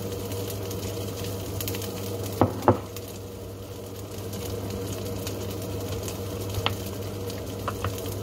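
Gyoza pan-frying, a steady sizzle and crackle of oil with a low hum underneath. Two sharp clicks come a little over two seconds in, and a few fainter ones near the end.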